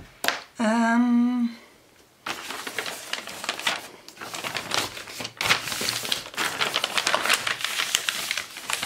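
Gift wrapping paper rustling and crinkling with many small crackles as a present is unwrapped and its contents handled, starting about two seconds in. Before that, a click and a brief hummed note from a voice.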